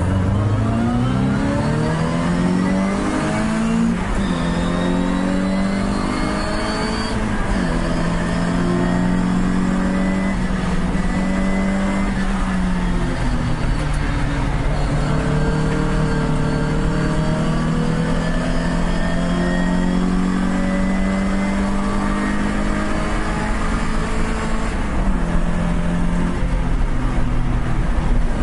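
Onboard sound of a racing MG sports car's engine at full throttle, with other race cars around it. The pitch climbs through the gears over the first several seconds, then holds high and steady, dipping briefly a couple of times at gear changes or lifts.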